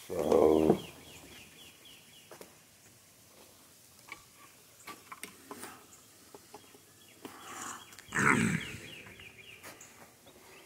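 An animal calling twice, each call short and loud, about eight seconds apart; the second falls in pitch.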